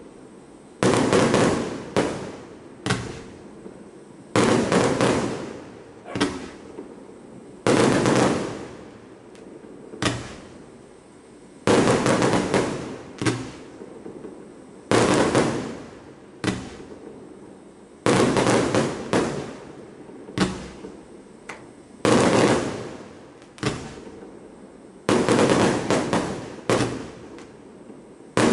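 A 90-shot W-shaped fireworks cake firing: about twenty loud bangs, each trailing off in a rumble of about a second, coming one every second or two in uneven clusters as shells are launched and burst.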